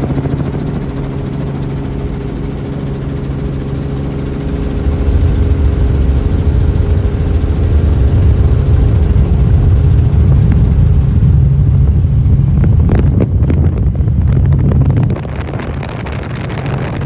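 Helicopter rotor and engine noise heard from inside the cabin: a steady drone with a low rumble that grows louder about five seconds in and drops back near the end.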